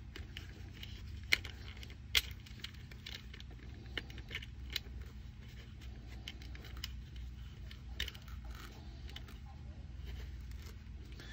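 Small metal clicks and scrapes as the metal clips of a clip-in helmet liner webbing are worked onto the rim of a helmet shell, with two sharper clicks about a second and two seconds in, over a steady low hum.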